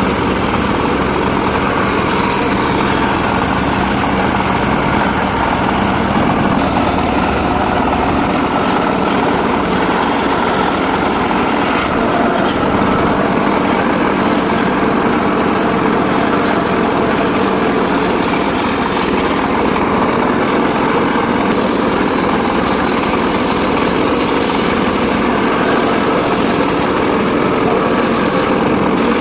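Homemade circular saw rig running steadily, sawing sengon laut wood with a dense, even machine noise that does not let up.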